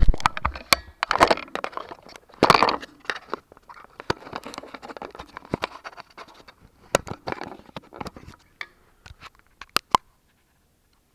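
Camera being handled and taken down from its mount: close rustling and scraping against the microphone with sharp clicks and knocks, heaviest in the first few seconds and thinning to scattered clicks near the end.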